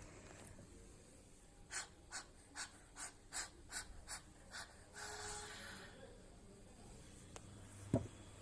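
A person taking short, sharp breaths over a bowl of steaming water for a cough and cold: eight quick breaths at about three a second, then one longer breath. A single low thump near the end.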